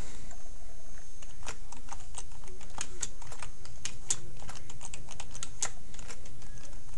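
Typing on a computer keyboard: a quick, irregular run of key clicks as a short phrase is typed, over a steady low hum.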